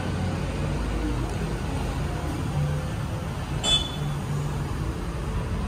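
Steady low rumble of motor vehicles or engine machinery, with one brief high squeak about three and a half seconds in.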